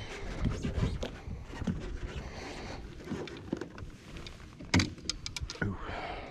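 Irregular knocks, thumps and clicks of fishing gear being handled and carried, with a sharp click nearly five seconds in.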